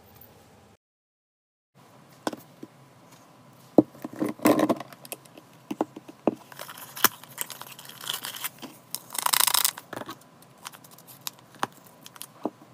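Hands handling a plastic spray bottle, with scattered clicks and taps and a rasping twist as the trigger head is unscrewed. About nine seconds in, a paper-foil powder sachet is torn open with a short rip.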